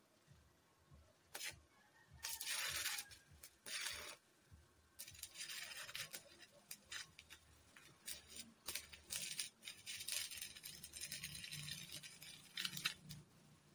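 Stick-welding arc crackling and hissing as a rod is run on a steel-tube frame: a few short bursts as the arc is struck in the first four seconds, then a near-continuous crackle from about five seconds in, with brief breaks.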